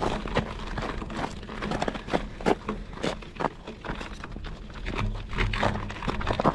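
Studded fat-bike tyre crunching over crusty snow: a rapid, irregular run of crunches and crackles.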